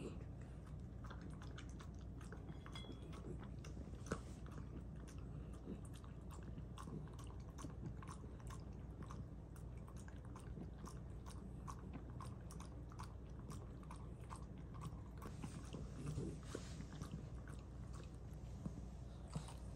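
A 16-year-old dog eating dry kibble from a stainless steel bowl: a steady run of small crunches and clicks as it bites and chews, a few a second.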